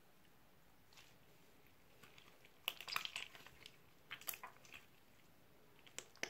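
Slime being squeezed and kneaded in the hands, giving faint sticky, crackly squelches in short bursts, the loudest about three seconds in and a few more near the end.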